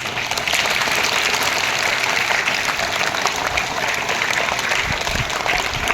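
An audience of many people applauding steadily, a dense patter of hand claps.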